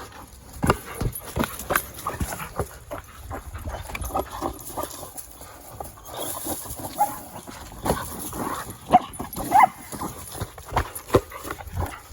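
Border collie scrambling about a play structure: a steady run of thumps and knocks from paws and ball on the boards, with a few short yips about two-thirds of the way through.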